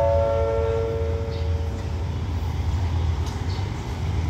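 A descending four-note station PA chime rings out and fades about two seconds in, over the steady low rumble of a diesel train idling at the platform.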